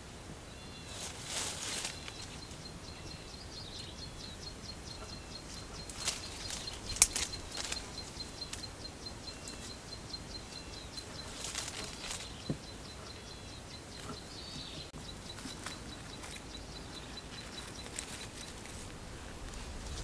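Rustling and snapping of leaves and thin sticks handled in scrub, with a sharp snap about seven seconds in. A high, evenly pulsing trill and a few short chirps run behind it.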